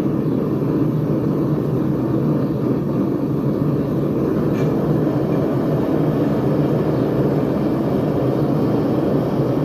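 Two venturi gas burners running in a newly built gas forge on its first test firing, making a steady, unchanging rushing noise.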